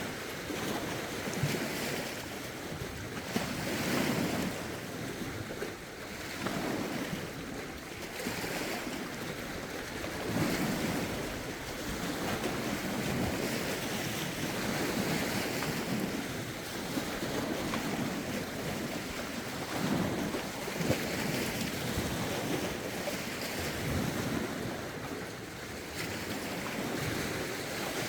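Lake waves washing in, swelling and ebbing every two to three seconds, with gusty wind rumbling on the microphone.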